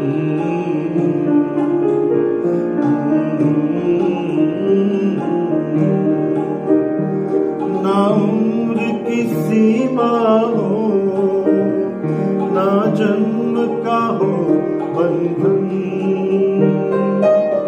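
Upright piano playing a ghazal melody with chords, with a man's voice singing along for a few seconds in the middle.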